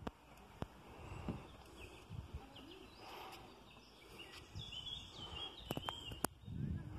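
Lakeside ambience: birds chirping in short calls through the middle, with a few sharp clicks, mostly bunched near the end, over a low rumble.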